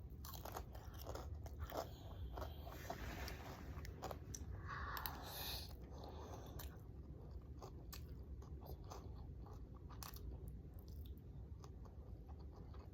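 A person biting and chewing a mouthful of fried noodles, rice and nuggets close to the microphone: scattered small crunches and mouth clicks, with a longer noisy crunching stretch about five seconds in.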